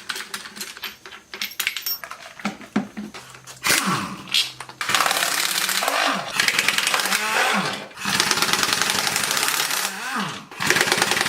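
Metal tools clinking and knocking, then a pneumatic impact wrench hammering in three long runs, its pitch falling away as it stops each time, as bolts are run off during the engine and transmission removal.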